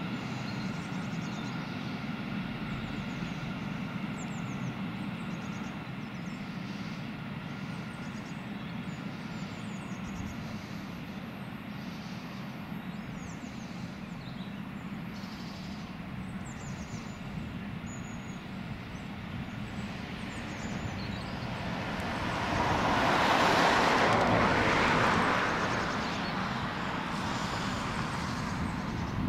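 Class 66 diesel locomotive's EMD two-stroke V12 engine running steadily while it creeps along behind a freight train. A little over twenty seconds in it opens up loudly for about three seconds as the driver takes power on the green signal, then settles back to a steady run.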